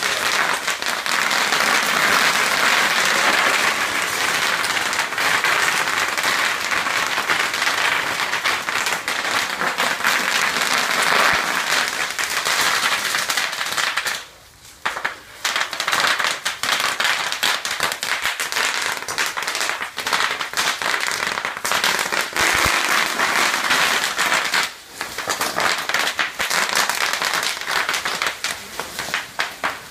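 Bubble wrap popping under the wheels of an electric wheelchair rolling over it: a dense, rapid crackle of pops, sounding like fireworks. It stops briefly twice, about halfway through and again near the end.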